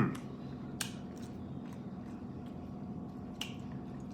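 Close-miked chewing of food, with a few sharp, wet mouth clicks over a steady low hum.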